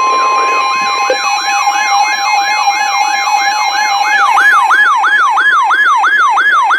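A loud electronic alert sounding: a steady two-tone alert tone, with a siren yelping up and down a little over twice a second laid over it. The higher of the two tones stops about a second in and the lower one fades out about five seconds in, while a second, higher-pitched siren sweep joins about four seconds in.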